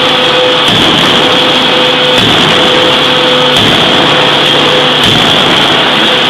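A 6-ton electro-hydraulic open die forging hammer striking a red-hot workpiece, with blows repeating about every one and a half seconds over a loud steady hiss. A steady hum sounds between the blows and breaks off at each one.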